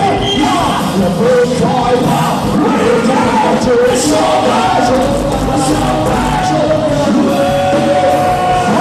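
Live rock-style band music with a singer carrying a wavering melody, loud and steady, with cymbal hits throughout.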